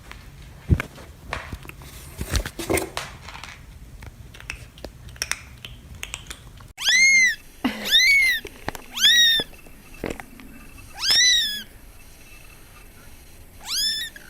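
A cat meowing five times in the second half: high-pitched meows that each rise and then fall in pitch. Scattered clicks and knocks come before the meows.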